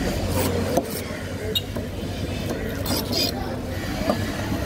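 Background voices and a steady low traffic rumble, with a few short, sharp scrapes of a large curved knife against the fish and wooden cutting board.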